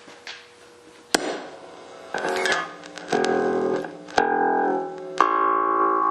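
Electric bass played through a small amplifier: a sharp click about a second in, then four plucked notes one after another, the last left ringing.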